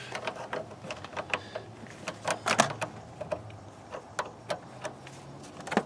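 Irregular clicks and taps of a 10mm wrench working the clamp nut on a car battery's negative terminal to disconnect it.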